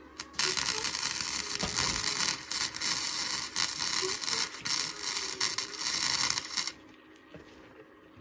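Electric arc welder crackling while making a tack weld on steel. The arc strikes about a third of a second in, runs for about six seconds, and cuts off abruptly.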